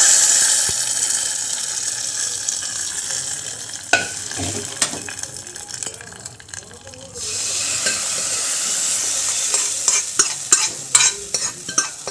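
Hot tempering of mustard seeds, garlic and curry leaves fried in oil, poured into a pot of cooked moong dal: a loud sizzle that starts suddenly and dies down over about four seconds, then sizzles again about seven seconds in. Near the end a steel ladle stirring the dal clicks and knocks against the pot several times.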